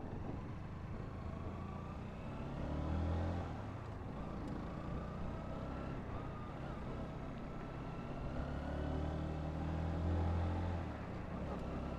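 Honda CBR125's single-cylinder four-stroke engine running at road speed, under steady wind and road noise. The low rumble swells briefly about three seconds in and again around ten seconds.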